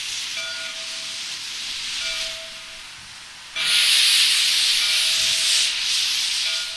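Soo Line 1003, an ALCO 2-8-2 Mikado steam locomotive, hissing steam, with a short pitched tone recurring about every one and a half seconds. About three and a half seconds in, a much louder rush of escaping steam starts abruptly; it eases off near the end.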